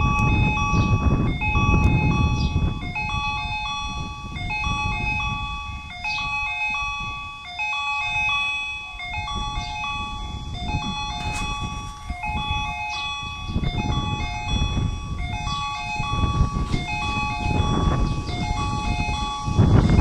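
Electronic warning tones ringing in a steady repeating pattern that steps between a few pitches, as a train approaches. Strong wind gusts buffet the microphone over it.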